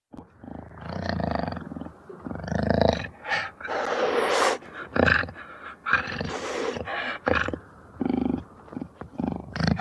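Jaguar roaring: a string of short, rough calls about a second apart, some with a low growling tone and some breathier.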